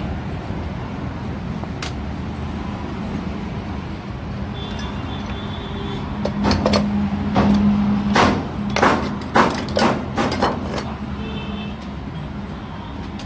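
A steady low hum, with a run of about a dozen sharp knocks and clatter from about six to eleven seconds in.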